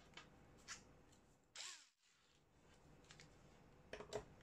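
Near silence with a few faint clicks and one short soft rustle from hands handling tools and the revolver.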